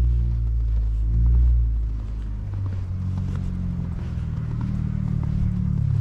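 A loud, low rumble that swells twice in the first second and a half, then settles into a steady drone.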